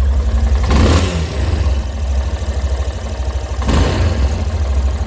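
Yamaha Ténéré 250 single-cylinder engine idling, with two short throttle blips, one about a second in and one near the end. The intermittent high-pitched cam-chain noise blamed on a worn cam chain tensioner is not present at this moment.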